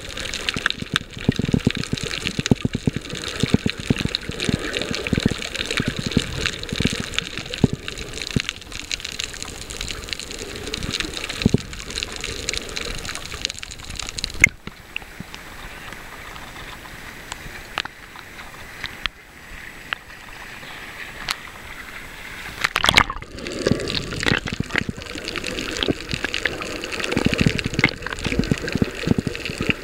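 Water sloshing and crackling against an underwater camera as a snorkeler swims, heard muffled through the housing. It goes quieter and smoother for several seconds in the middle, then a sudden burst and the sloshing picks up again.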